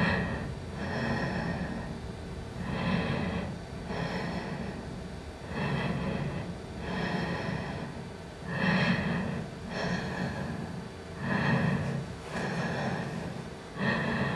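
Rhythmic breathing, in and out, a breath pair about every three seconds, the first of each pair the louder; each breath carries a steady pitch.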